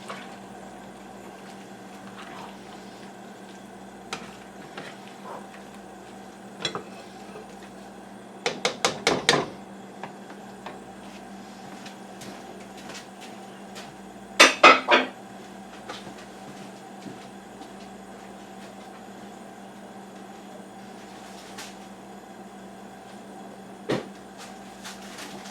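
A cooking utensil knocking and clinking against a pot while the food is stirred: a quick run of taps about eight seconds in, and louder ringing knocks about halfway through. A steady hum lies underneath.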